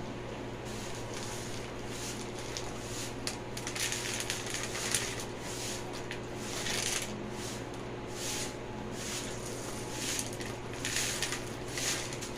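Dry beans being picked over by hand, the grains sliding and rattling in short, irregular rustles over a faint steady hum.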